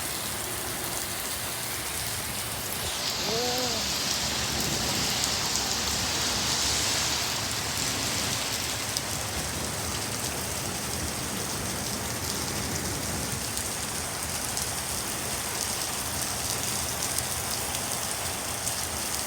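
Heavy rain pouring steadily in a thunderstorm, growing heavier for a few seconds about three seconds in.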